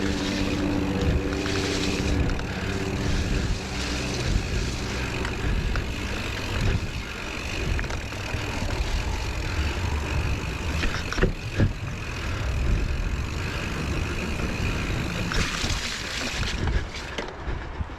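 Hardtail mountain bike riding down a wet, slick trail: steady wind rumble on the microphone mixed with the tyres rolling over mud and rocks, and a few sharp knocks from the bike about two-thirds of the way through.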